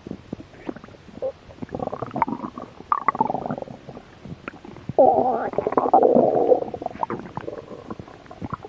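Human stomach growling from hunger: a run of short, irregular gurgles and pops, then one long, loud growl about five seconds in that lasts about a second and a half, followed by more gurgling.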